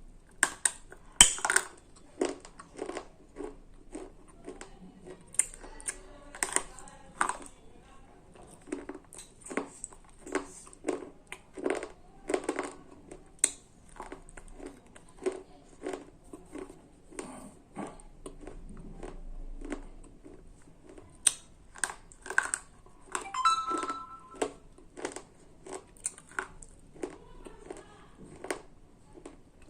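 Slate pencils being bitten and chewed close to the microphone: a long run of sharp, dry crunches, roughly one or two a second.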